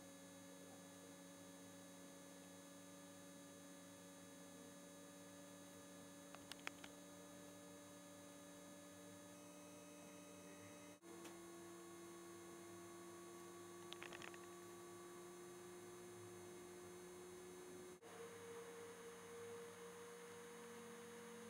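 Near silence: a faint steady electrical hum whose pitch shifts twice, with a few faint ticks.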